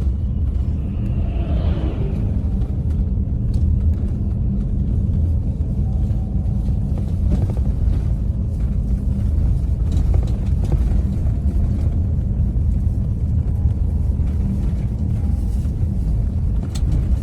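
Steady low rumble of a moving vehicle, unchanging throughout, with a brief higher hiss about a second in.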